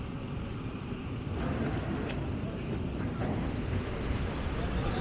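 City street ambience dominated by the low rumble of passing traffic, with a few light clicks in the middle.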